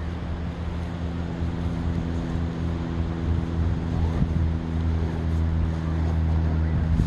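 An engine running steadily with a low hum, slowly getting a little louder.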